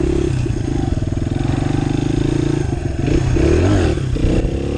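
1999 Honda XR100's single-cylinder four-stroke engine running while the bike is ridden, holding steady revs, then dipping and rising again about three seconds in before settling.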